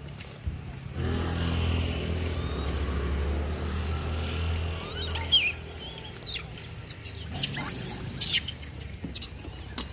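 A motor vehicle engine runs with a steady low hum for a few seconds. Then come a few short, shrill rising squeals from rhesus macaques scrambling over pineapple, the loudest about halfway through and again near the end.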